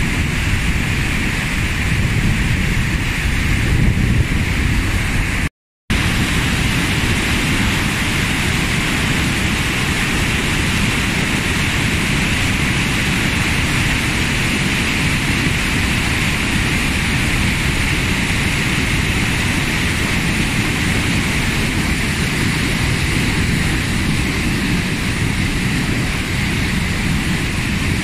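Floodwater of a swollen river rushing through whitewater rapids and pouring over a weir: a loud, steady, even rushing of churning water. The sound cuts out for a moment about six seconds in.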